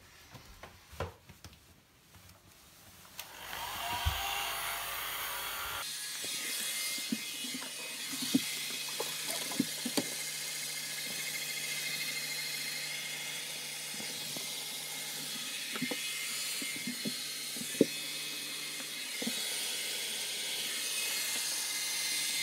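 Handheld hair dryer switched on about three seconds in and running steadily, a rush of blowing air with a low motor hum that joins about six seconds in. A few light knocks from handling sound over it.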